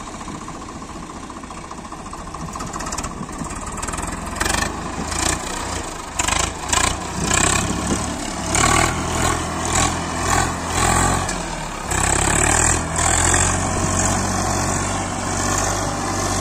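Swaraj 855 tractor's three-cylinder diesel engine labouring under load as it pulls a fully loaded soil trolley through soft ground. It grows louder a couple of seconds in and then runs in repeated surges, about one every 0.7 seconds.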